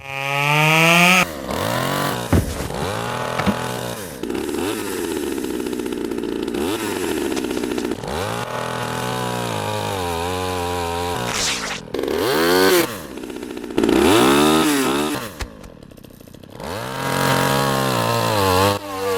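Chainsaw engine revving up and down over and over, its pitch rising and falling every second or so, dropping away briefly near the end before revving again.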